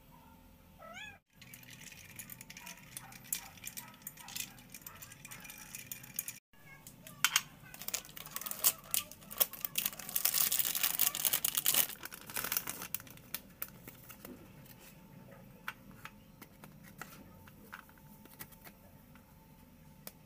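A cat meowing now and then, with clinks and rattling of ice and a metal spoon in a drinking glass. The clinking is loudest and densest around the middle.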